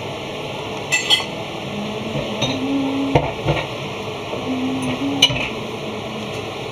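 Kitchen clatter: utensils clinking and scraping against dishes, with a few sharp clinks over a steady background hiss.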